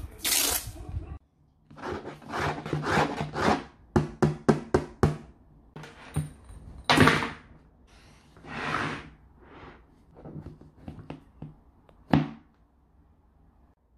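Hard plastic shell of a Starbucks Summer Ready Bag being handled on a wooden table: a series of knocks and thunks as it is gripped, lifted by its top handle and moved about. There is a quick run of about six sharp knocks a few seconds in, and a last sharp knock near the end.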